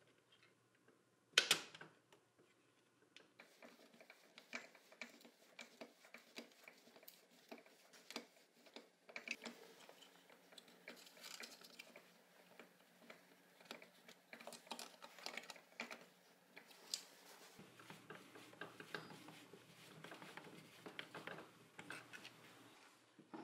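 Small parts of a demolition hammer being handled on the bench: scattered light clicks, taps and rattles, with one sharp knock about a second and a half in.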